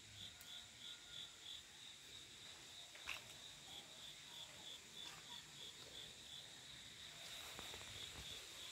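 Faint insect chirping in runs of about four chirps a second, over a steady high insect whine. A single sharp click about three seconds in.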